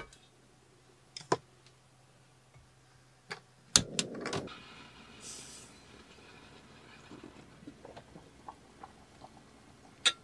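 Sharp clicks and knocks of objects being handled, with a louder knock about four seconds in followed by a short rustle, then a brief hiss and a few faint ticks.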